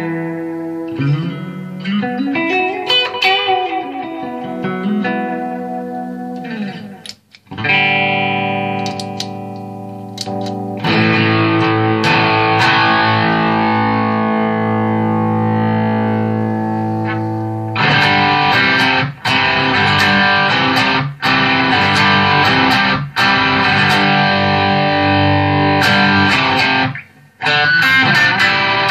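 Electric guitar, a Gibson Les Paul Special with P90 pickups, through a Visual Sound Route 66 V3 overdrive/compressor pedal into a 1978 Fender Pro Reverb amp. It plays single-note lines with a string bend, then a chord left to ring and fade. From about halfway on come strummed chords broken by several short stops.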